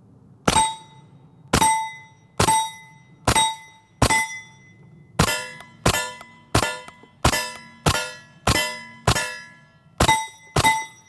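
Stribog SP9A3G delayed-blowback 9mm carbine fired about fifteen times at a steady pace. Each shot is followed by the clang and ring of a struck steel target. The first five ring at one pitch, and the later hits ring at other pitches, from different plates.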